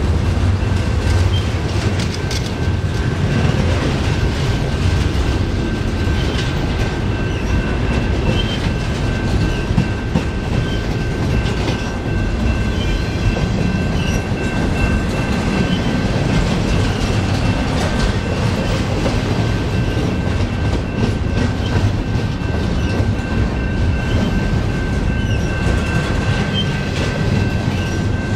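Double-stack intermodal well cars rolling past close by: a steady, heavy rumble of steel wheels on rail, with a thin, steady, high-pitched squeal from the wheels running over it.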